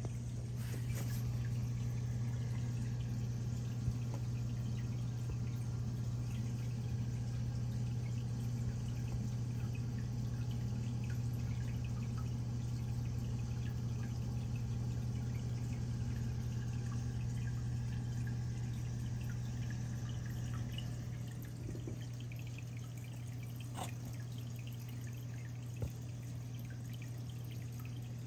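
Reef aquarium equipment running: a steady low hum, like that of a pump, under water trickling and dripping.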